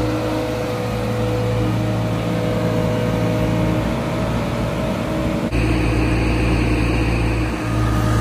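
Diesel engine of a large boat travel lift running steadily with a steady whine while it holds a shrimp trawler in its slings. About five and a half seconds in, the sound cuts abruptly to a similar steady engine hum.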